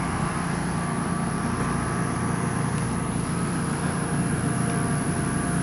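A steady motor hum over a low rumble, with faint unchanging tones and no distinct events.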